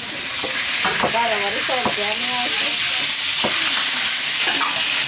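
Cooking oil poured in a stream into a large hot steel pan, sizzling steadily as it spreads over the hot metal.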